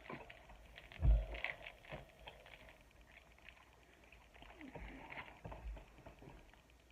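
Plastic snack packet rustling and crackling as it is handled and opened, with a dull bump about a second in.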